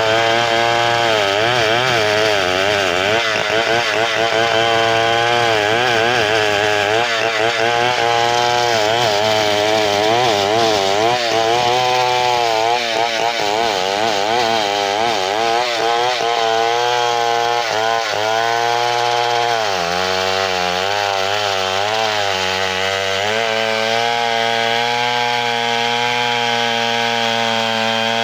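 Large two-stroke chainsaw cutting through a big hardwood log, running loud and steady, its engine pitch wavering up and down as the chain bites under load, settling a little lower about two-thirds of the way through.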